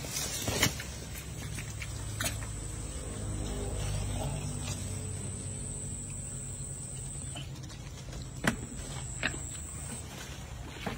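A few sharp splashes and knocks as hands and a plastic bucket move in shallow water: the loudest comes about half a second in, two more near the end. Under them runs a steady low hum, and a thin high whine that stops shortly before the end.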